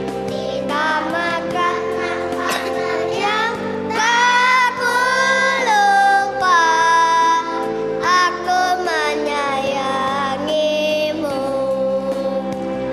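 A choir of young kindergarten children singing together over a musical accompaniment of held chords, the sung notes gliding and held for about a second at a time.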